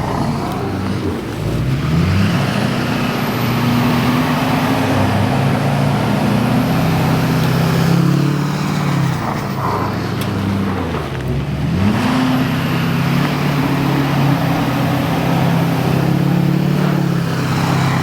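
Truck engine revving hard under load. Its pitch climbs and holds, sags about two-thirds through, then climbs again and holds.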